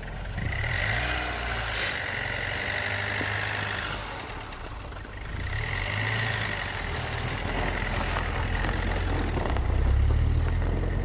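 Recorded car sound effect of an engine starting and driving off, played back from the computer: the car engine runs steadily, swelling in level twice.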